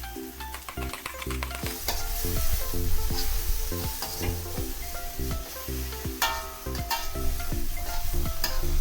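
Food sizzling and frying in a pan while it is stirred, with short scrapes and clicks of the utensil against the pan, over background music with a bass line.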